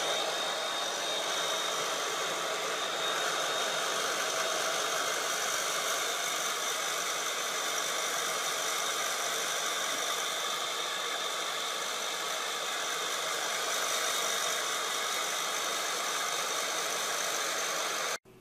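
Vacuum cleaner running steadily, a continuous motor whine with a rushing airflow, cutting off abruptly near the end.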